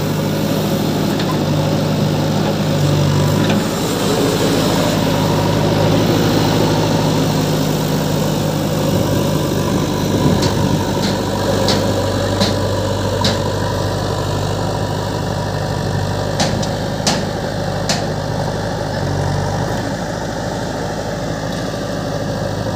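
Diesel engines of a JCB backhoe loader and a John Deere tractor running steadily at idle, with soil pouring from the loader bucket into the tractor's trailer near the start. A series of sharp clicks comes about halfway through.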